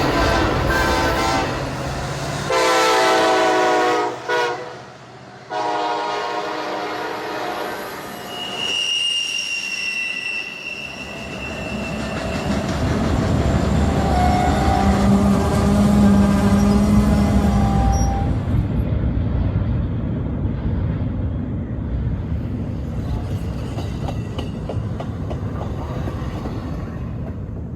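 Added full-size train sound effects: a chorded train horn sounding three long blasts, then a high wheel squeal, then the rumble and wheel noise of a passing train that swells and slowly fades.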